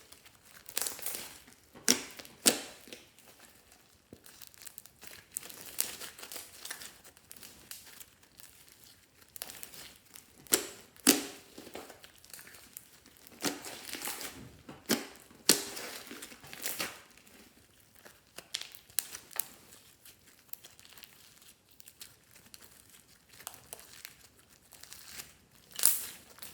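Hands squishing and stretching a fluffy slime packed with foam beads, giving irregular crunching and crackling with scattered sharp pops.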